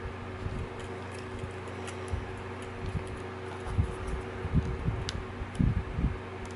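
Small plastic clicks and dull handling knocks from fingers working a ribbon cable into its connector inside a compact camera body, over a steady low hum. The knocks are loudest between about four and six seconds in.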